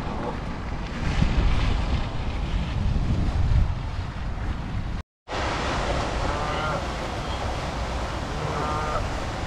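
Lakeside ambience: wind buffeting the microphone over a steady rush of water, cut off completely for a moment about halfway through. In the second half, two short calls from Canada geese.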